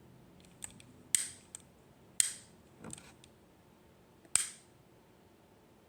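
Handheld lighter being struck again and again: three sharp clicks, each with a short fading hiss, and a few fainter clicks between them.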